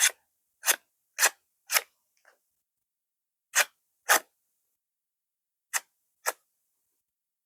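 Microtech Combat Troodon out-the-front automatic knife being fired and retracted: eight sharp snaps, mostly in pairs about half a second apart, as the blade shoots out and snaps back into the handle.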